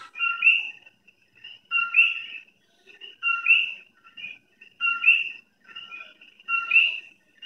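Short, high, bird-like chirping calls repeated about every second and a half, each a quick rising chirp over a steady whistled note, with fainter chirps in between.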